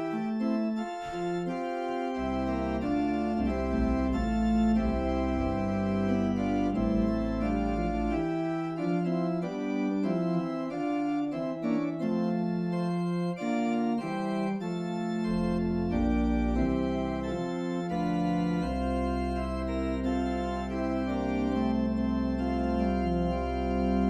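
Church organ playing the postlude: sustained chords moving from one to the next, with deep pedal bass notes dropping out for a few seconds in the middle and then returning.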